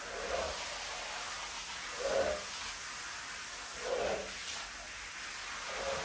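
Squeegee blade pushing soapy water across a wet rug, a swish and splash with each stroke: four strokes, about every two seconds, over a steady hiss.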